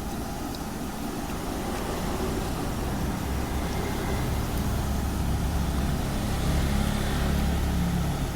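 Road traffic: a steady low rumble of passing vehicles. An engine's hum grows louder through the second half.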